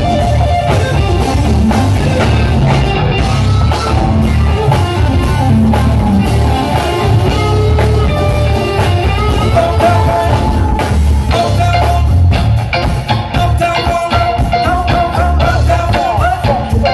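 Live funk band playing through a PA: electric guitar lines over a driving bass and drum-kit groove, with some singing.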